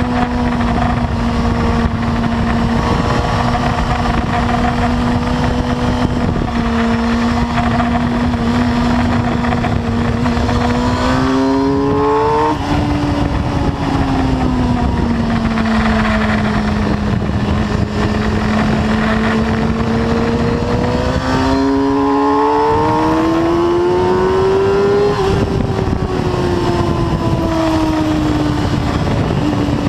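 Suzuki sportbike engine running hard at track speed, heard from on the bike over constant wind rush. The engine note holds steady, climbs about ten seconds in, falls back, climbs again past twenty seconds and drops away near the end.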